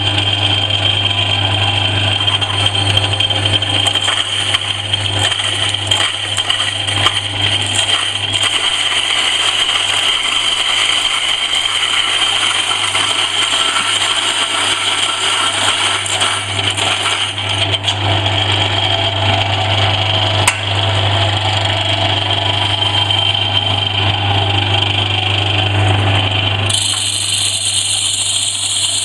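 A 3600 W stainless steel commercial grain grinder running, a steady motor hum and high whine under a continuous gritty grinding noise. Near the end the sound changes abruptly, losing body and turning thinner and higher.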